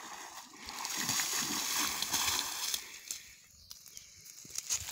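Water splashing and sloshing as a drag net is hauled in by rope through shallow river water, loudest for the first few seconds and then dying down.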